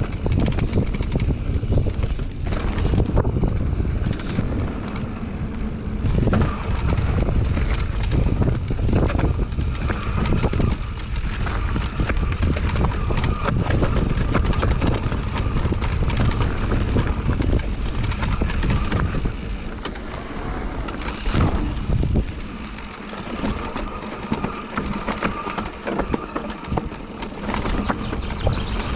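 Mountain bike riding down a rough dirt trail: tyres rolling over the ground with frequent knocks and rattles from the bike over bumps, under a heavy low rumble that eases about two-thirds of the way through.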